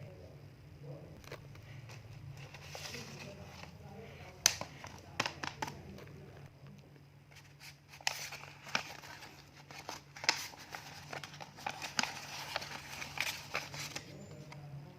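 Handling of a homemade gacha toy machine: crinkling and rustling with scattered sharp clicks and taps, the busiest stretch in the second half, over a steady low hum.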